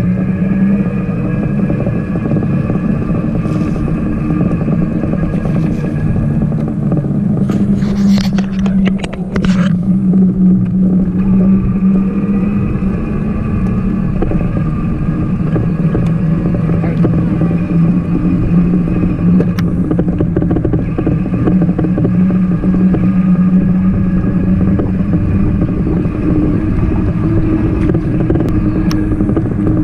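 Trike's motor humming steadily while riding along, its pitch wavering only slightly. There is a brief clattering burst about eight seconds in.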